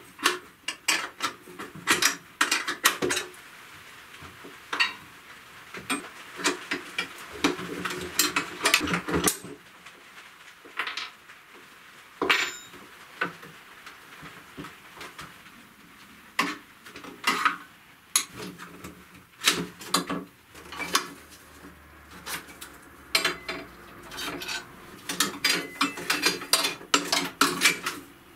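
Metal clinking and clatter of a wrench, nuts and bolts as a pedal go-kart's steel tube frame is unbolted by hand. Irregular sharp clicks and knocks come with a few quieter pauses.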